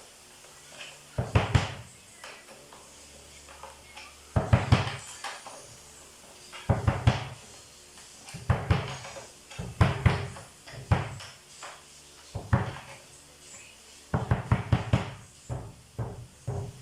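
Bass drum batter head being tapped while it is tuned, to check its pitch: short clusters of quick taps, each with a low thud, about every one to two seconds.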